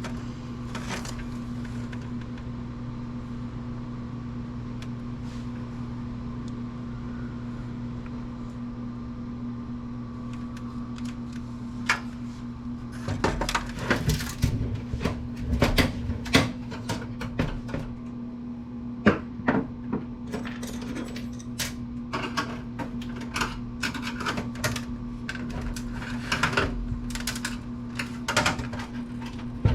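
Metal computer parts and hand tools clicking, clattering and knocking as an old Apple computer is taken apart by hand, the handling noises starting about twelve seconds in and coming in irregular clusters. A steady low hum runs underneath throughout.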